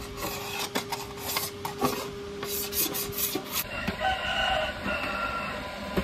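An old, hardened sticker being scraped off a Hero Honda Splendor body part: a quick, uneven run of short rasping scrape strokes for about the first three and a half seconds, then the scraping stops.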